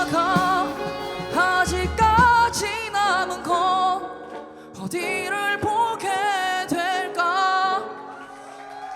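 Live band music: a singer holding wavering, vibrato notes over guitar, bass, drums and keyboard in a song's closing bars, falling back to a soft held chord near the end.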